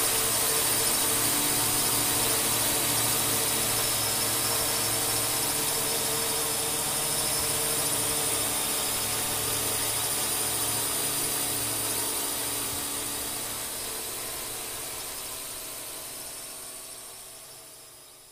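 Steady whine of a multirotor drone's propellers and motors, several held tones from a low hum to a high hiss, fading out over the last few seconds.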